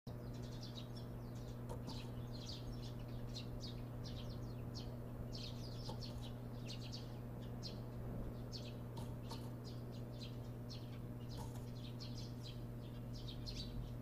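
Birds chirping: many short, high chirps coming in quick clusters all the way through, over a steady low hum.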